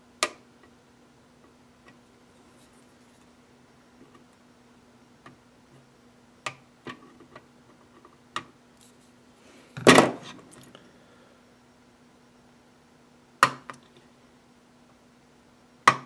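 Sharp clicks and taps of small hand tools (flush cutters and a soldering iron) against a circuit board and the bench, a few seconds apart, with one louder, longer clatter about ten seconds in, over a faint steady hum.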